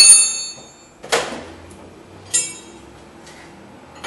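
Metal hand tools clanking: a loud ringing clang at the start, a sharp knock about a second later, and a shorter ringing clink around two and a half seconds in, as a steel wrench is handled against the tie rod and suspension.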